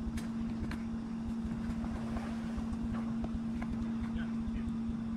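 An engine or motor running at a steady speed, a constant unchanging hum, with wind rumbling on the microphone.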